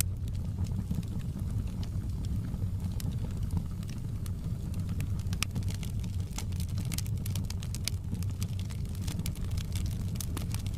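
Wood fire burning in a fireplace: a steady low rumble of the flames with frequent sharp, irregular crackles and pops.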